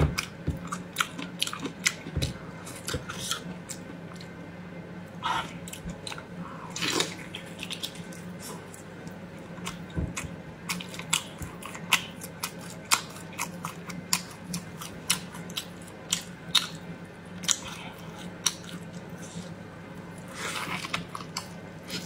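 Close-miked chewing and mouth sounds of a person eating braised meat in chili oil: wet smacks and clicks, several each second, over a faint steady low hum.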